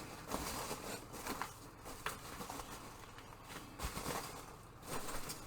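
Packing foam peanuts and packaging rustling as they are shifted around in a shipping box, with a few soft knocks.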